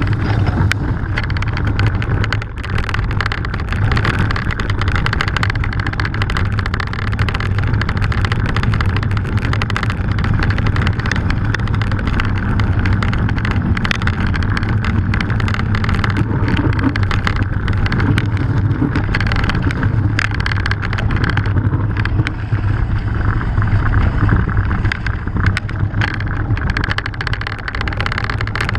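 Mountain bike rolling fast down a loose gravel trail: a continuous rumble of tyres on stones with dense, irregular rattling from the bike, and wind buffeting the bike-mounted camera's microphone.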